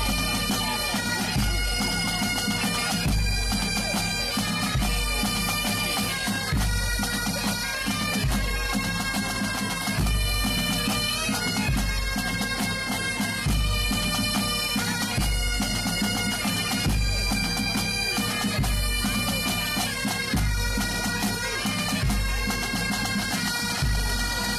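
A pipe band of Great Highland bagpipes playing a tune over their steady drones, with a low drum beat at a regular pace.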